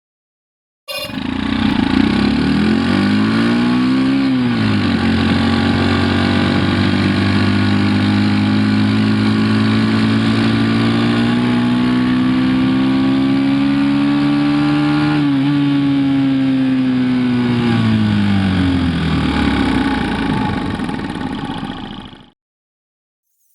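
Honda CD90 Benly's small four-stroke single-cylinder engine running, its revs climbing to about 4 s in, dropping, then rising slowly until a brief dip about 15 s in. The engine speed then falls away, and the sound cuts off suddenly near the end.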